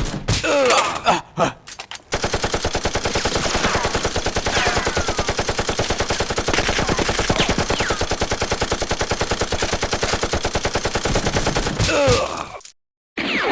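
Rapid automatic gunfire, a machine-gun sound effect, starting about two seconds in and running for about ten seconds before it stops. Men cry out and groan before and over the firing.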